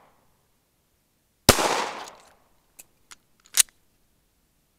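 A single 9mm pistol shot from a Glock 19 about a second and a half in, its report echoing away over about a second. A few faint clicks and one sharper click follow. The fading echo of the previous shot is heard at the very start.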